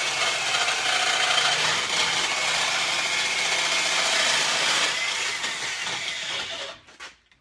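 Electric drill driving a hole saw in a tube notcher, cutting a notch into a roll-cage tube. It runs steadily and stops about seven seconds in.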